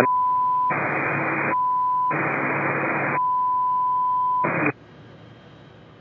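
Censor bleep masking a phone number read over air traffic control radio: a steady high beep tone sounds three times, broken by three bursts of radio hiss, and stops about three-quarters of the way in, leaving a faint hiss.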